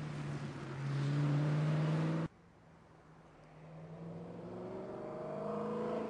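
BMW E92 M3's V8 engine running as the car passes close by, the note holding steady, until it cuts off abruptly a little over two seconds in. Then the engine is heard again, quieter at first, its pitch rising and growing louder as the car accelerates toward the listener.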